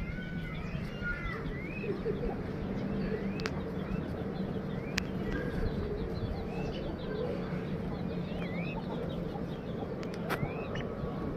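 Birds chirping in many short rising-and-falling chirps, busiest in the first two seconds, over a steady low hum, with a few sharp clicks.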